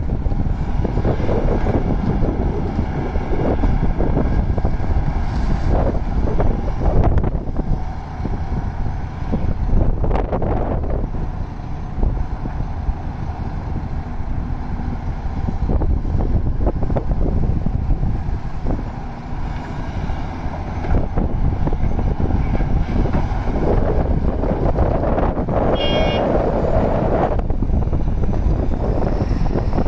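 Diesel engine of a large Hitachi Zaxis 670H hydraulic excavator running steadily under load through its dig-and-swing cycle, with scattered knocks of earth and rock hitting the steel body of a dump truck and wind on the microphone. Near the end, a brief high-pitched tone sounds.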